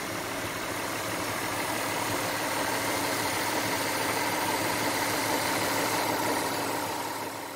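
Audi 3.0 V6 petrol engine, converted to sequential LPG, idling steadily, heard from over the open bonnet.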